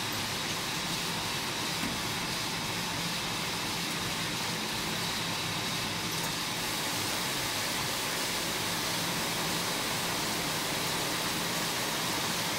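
Steady hiss and hum of sock-knitting machinery running on a factory floor, with a faint high whine over it.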